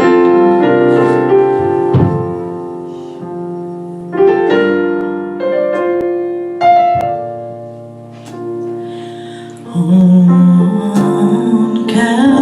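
Piano introduction to a gospel song: slow sustained chords struck one every second or two, growing fuller and louder about ten seconds in, with a singer's voice coming in near the end.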